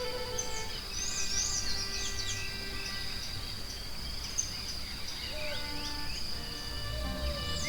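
Soft relaxation music with long held notes over a forest soundscape: a steady high insect drone and bursts of short, quick bird chirps, about a second in and again near the end.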